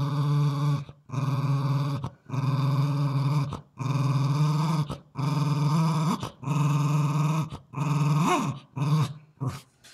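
Small dog growling with a bone in its mouth, a warning growl guarding its food from a hand touching it. The growls come one after another, each about a second long with a quick break between them, and turn shorter and choppier near the end.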